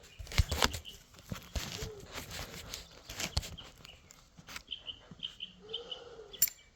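Knocks and clatter of small parts and tools being handled in the first half, then a quick run of short, high pet-bird chirps.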